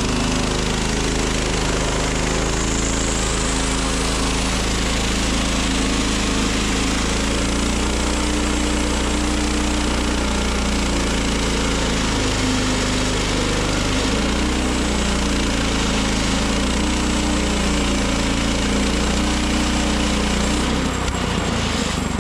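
Portable sawmill running, its engine steady under load while the blade cuts through a log, with a dense hiss of sawing over the engine note. Near the end the sawing hiss drops away as the cut finishes.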